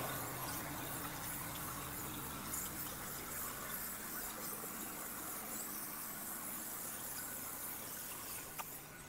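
Steady hiss of water spraying from a pressure-washer wand onto shrubs, heard from a distance, with a single short click near the end.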